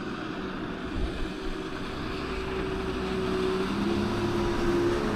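Ski boat's engine running out on the river, its steady note shifting about two-thirds of the way in and then growing louder. Wind buffets the microphone throughout.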